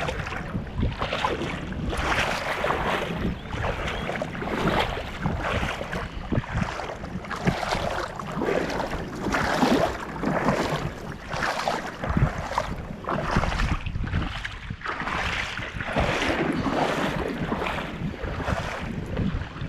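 Shallow river water running and splashing over stones: an uneven rushing that swells and falls about every second.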